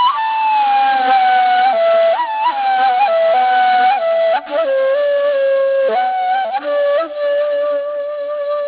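Music: a solo flute plays a slow melody, with notes sliding into one another, and settles on a long held note near the end.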